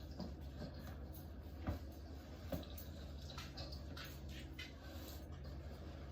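Hands kneading shredded mozzarella into a wet ground-meat meatloaf mix: faint squishing with small wet clicks, two sharper ones near the middle, over a steady low hum.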